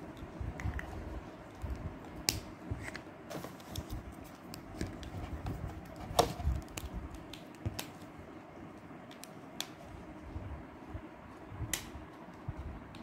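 Scattered clicks and taps of hands handling a cardboard gift box and a lipstick tube, with one louder click about six seconds in, over low rustling handling noise.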